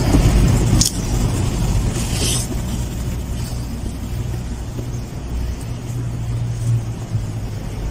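Steady low rumble with a faint even hiss, like a motor or traffic running in the background, with a sharp click about a second in.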